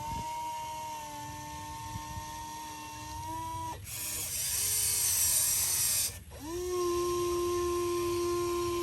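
A machine whining steadily at one pitch, twice: each whine slides up as it starts and then holds, the first lasting a few seconds. Between the two whines there are about two seconds of hiss.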